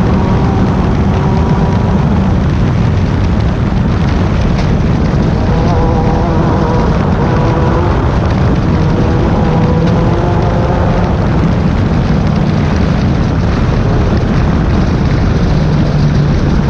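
Class 10 off-road race car's engine running hard and continuously, its pitch rising and falling with the throttle over a steady rough rushing noise.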